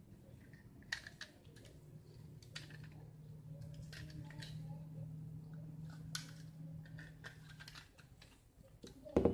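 Plastic parts of a toy pistol clicking and rattling as it is handled and taken apart, a scatter of small sharp clicks. A low steady hum runs under the middle, and a louder knock comes near the end.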